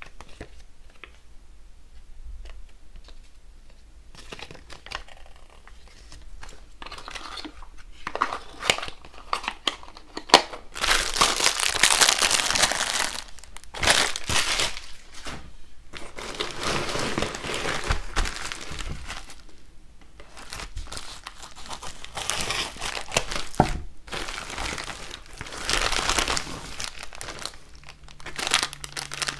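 Soft rustling at first, then plastic packaging crinkling loudly in repeated bursts as it is handled and pulled open.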